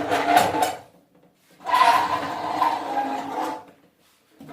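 A heavy appliance being dragged and turned across the floor: two scraping rubs, the first about a second long, the second about two seconds, each with a faint squeal.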